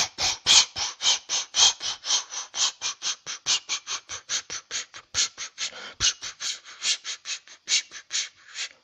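Steam locomotive chuffing steadily along, about four to five puffs a second.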